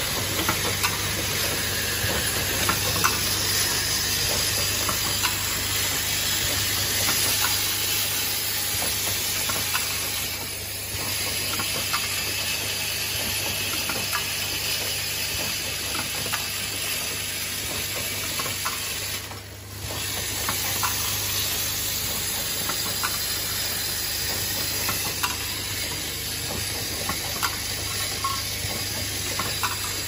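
Pneumatic automatic door hinge assembly machine running: a steady hiss with many small clicks and clacks, over a low hum.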